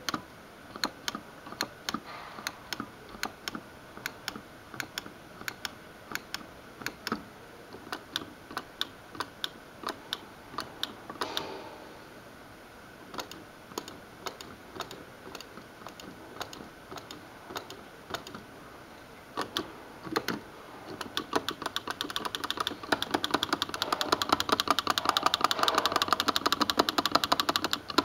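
Large red dome push buttons clicking as they are pressed by hand, each click registering one point on the display's score counter. The presses come a few at a time with uneven gaps at first, then turn into a fast, continuous run of clicks near the end.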